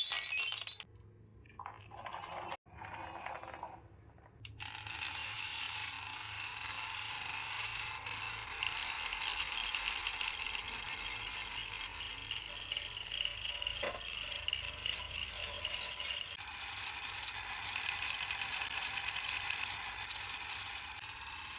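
Marbles rolling and clattering down a wooden marble run: a few faint sounds, then from about four seconds in a continuous dense rattle of small clicks.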